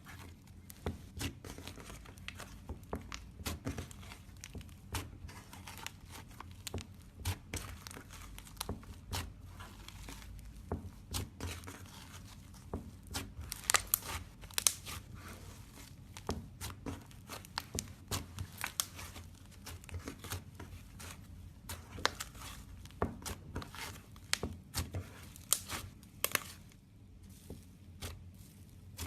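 Slime being squeezed and worked by hand close to the microphone, giving irregular sharp crackles and pops, loudest around the middle.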